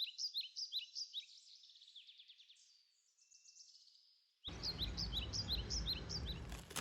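Small birds chirping in quick, repeated down-sliding notes, several a second, fading for a moment midway. A steady low background noise of the surroundings cuts in suddenly about four and a half seconds in as the chirping strengthens again.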